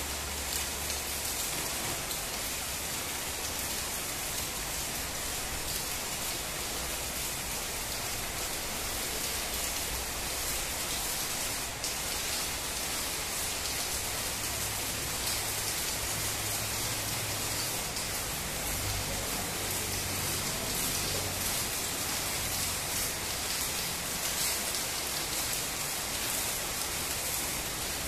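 Stick (shielded metal arc) welding on steel plate: a steady, crackling sizzle from the burning electrode, with a momentary drop about twelve seconds in.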